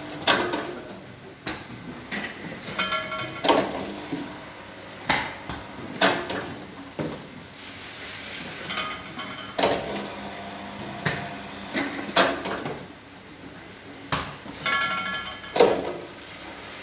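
Irregular knocks and clatter of plastic oil jugs being set down, pulled out and handled on the steel stand of an oil filling machine, a few of the knocks ringing briefly like metal.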